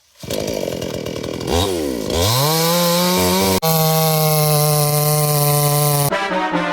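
Chainsaw engine running: its pitch dips and climbs back about two seconds in, then holds at steady high revs. The sound breaks off abruptly near the end.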